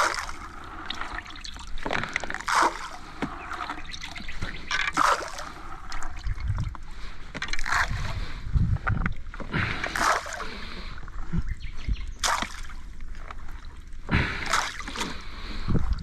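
Water splashing and lapping around a small inflatable boat, in irregular splashes every second or two over a low rumble.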